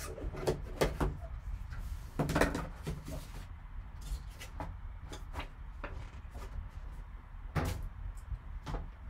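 Cardboard card box being opened by gloved hands: the lid slid off and lifted, with soft rubbing and scattered light knocks and taps, two a little louder, about two seconds in and near the end.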